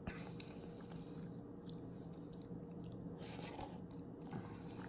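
Faint chewing of instant ramen noodles, with small soft clicks and a brief wetter, noisier sound about three seconds in.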